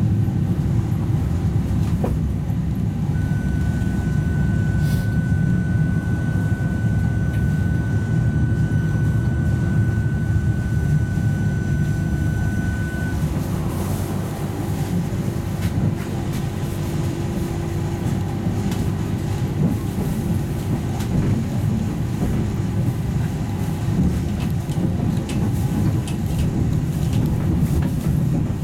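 Tatra T3 tram heard from inside the passenger saloon while running: a steady low rumble of wheels on rails throughout. A thin, steady high whine starts about three seconds in and stops about ten seconds later. Scattered clicks and knocks come more often in the second half.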